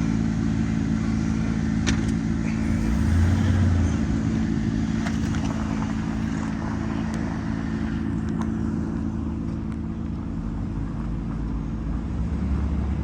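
A motor vehicle engine running steadily with a low hum, swelling briefly twice, with a few light clicks.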